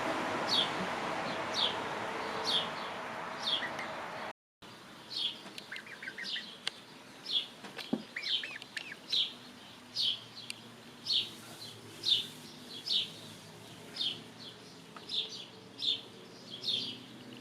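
A bird chirping over and over, short high downward chirps about once a second, with a few softer arched calls among them. A brief break in the sound comes about four seconds in.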